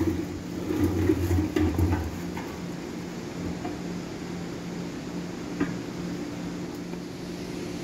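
A plastic dust-collection drum being handled and fitted under a dust extractor's hopper: irregular rustling and bumping over the first two seconds and a single sharp knock about five and a half seconds in, over a steady machine hum.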